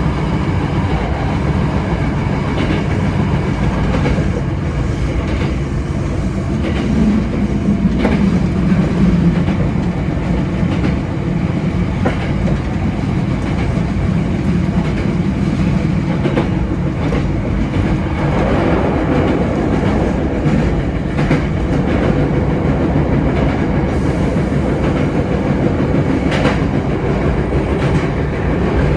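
Hankyu 7300 series electric train running along the line, heard from the driver's cab: a steady rumble of wheels on rail with occasional sharp clicks as the wheels pass rail joints.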